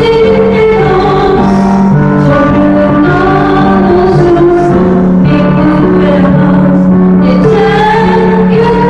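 Female voice singing a slow song with long held notes, accompanied by a digital piano.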